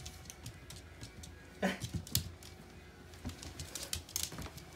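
Miniature schnauzer's claws clicking and tapping on a wooden floor and against a box, in quick irregular taps, with a sharper knock just after two seconds. One short animal cry falling in pitch comes about a second and a half in.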